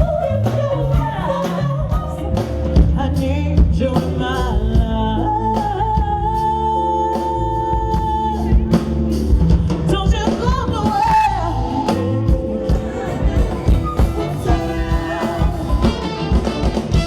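Pop music: a singer over a band with bass and drums. About six seconds in the singer holds one long high note for a couple of seconds, with a slight waver.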